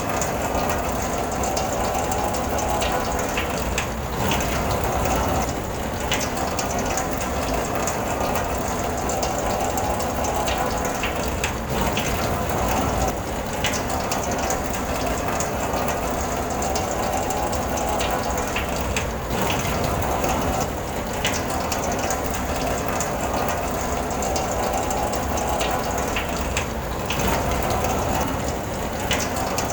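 Rain on a car's roof and windows heard from inside the cabin: a steady, dense patter of fine ticks.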